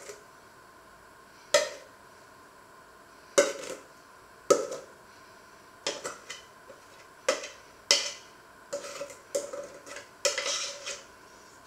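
Spoon scraping and knocking against a stainless-steel mixing bowl as sticky dough is scooped out into a pot: a string of about ten irregular short scrapes and clinks.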